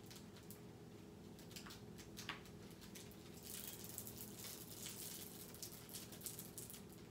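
Clear plastic top sheet of a diamond painting canvas crinkling faintly under fingertips: a few scattered crackles at first, thickening into a steady rustle about halfway through.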